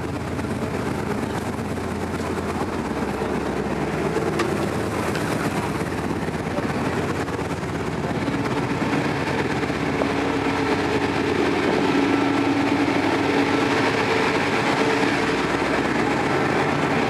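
Engine of a river passenger boat under way, a steady drone with a rushing noise underneath, growing a little louder about halfway through.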